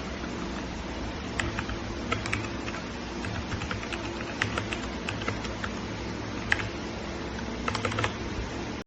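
Typing on a Redragon K617 Fizz 60% mechanical keyboard: irregular keystroke clacks begin about a second and a half in, over a steady low hum and hiss.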